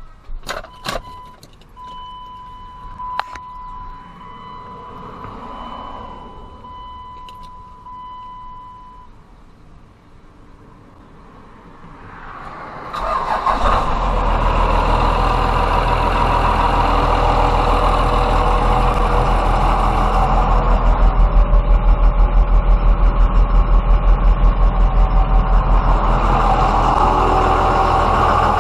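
A few clicks and a steady electronic tone for several seconds, then a 5.9L Cummins turbo diesel cranks briefly, fires and settles into a loud, steady idle, with a rhythmic pulsing for a few seconds in the middle. This is the first start after the valve-lash adjustment.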